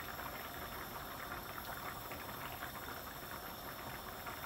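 A thin, watery fish curry sauce simmering in a frying pan, bubbling steadily with many small pops as the liquid reduces.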